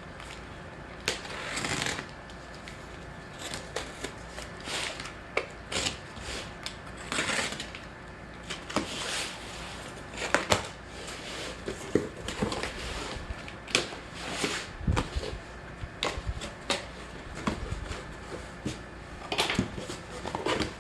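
Cardboard shipping box being cut open and its flaps and packing handled: irregular scrapes, rustles and sharp clicks.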